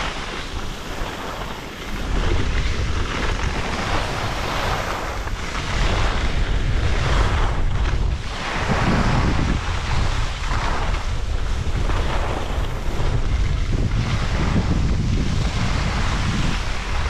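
Wind buffeting the microphone: a loud, gusty rush with a heavy low rumble that swells and eases.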